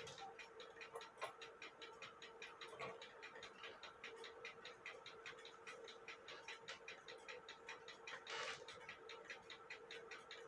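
Cuckoo clock movement from an 1880 Alexander Fleig hunter's cuckoo clock ticking faintly and evenly, several ticks a second, running on a test stand.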